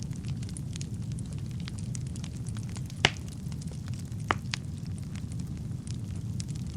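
Wood fire burning in a fireplace: a steady low rumble under irregular crackles and small pops. The loudest pop comes about three seconds in, and another sharp one a little over a second later.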